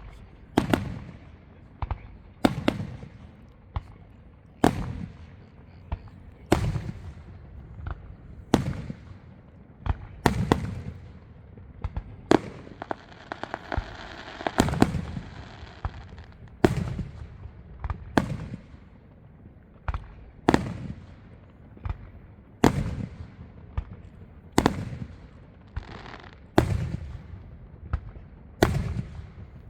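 Aerial fireworks shells bursting in a display, a sharp bang every second or two, each trailing off in a low rumbling echo. In the middle, a few seconds of steady hissing noise run under the bangs.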